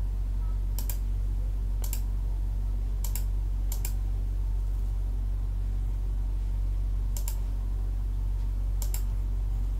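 Computer mouse clicking, six sharp clicks at uneven intervals, over a steady low hum.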